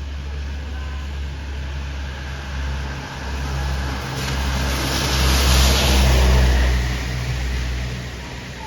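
Heavy road vehicle driving past with a deep engine rumble. The engine and tyre noise swell to a peak about five to six seconds in, then fade as it goes by; no horn is sounded.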